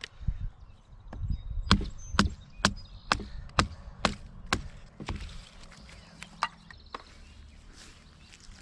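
Wood being chopped for a campfire: a run of about eight sharp chops, roughly two a second, followed by a couple of scattered strikes and then a pause.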